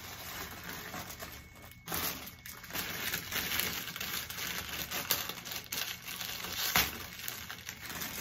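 Clear plastic bag crinkling and rustling as it is handled, with a couple of sharper crackles about five and seven seconds in.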